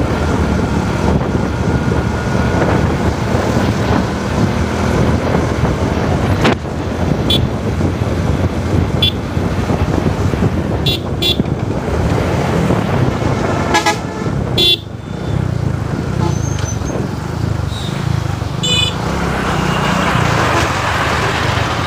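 Road traffic heard from a moving motorcycle: a steady rumble of engine and road noise, broken by a series of short vehicle horn toots through the middle, the sharpest about 14 and 15 seconds in.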